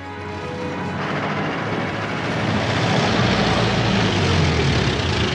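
Canvas-topped military truck driving close by: engine rumble and tyre noise, growing louder over the first few seconds and then steady.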